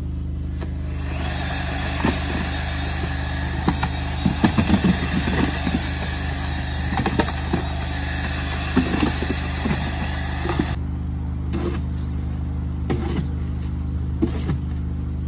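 A double-paddle electric mixer churns hot, steaming lime mortar in a wooden mixing box, with knocks and scrapes from the paddles, and then cuts off suddenly. This is hot-mixing lime mortar straight after slaking quicklime. It is followed by a few shovel scrapes through the mix, and a steady low hum runs underneath.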